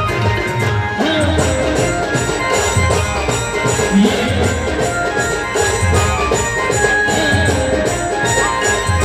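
Village band playing a Garba song: held melody notes over a steady drum beat, with jingling percussion on top.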